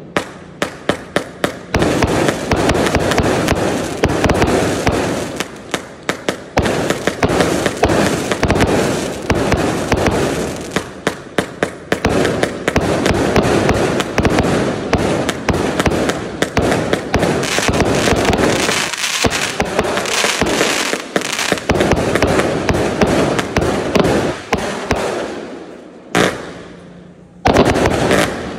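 A 278-shot consumer fireworks cake with 0.8-inch tubes firing continuously: rapid volleys of launch pops and aerial bursts, one close on another, over a steady wash of explosions.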